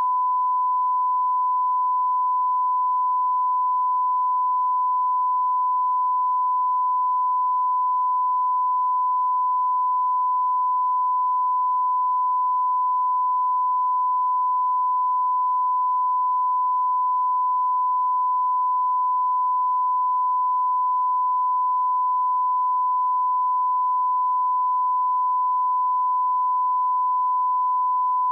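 Broadcast line-up tone: one steady, unbroken 1 kHz sine tone at a constant level, the reference tone played with colour bars at the head of a videotape for setting audio levels.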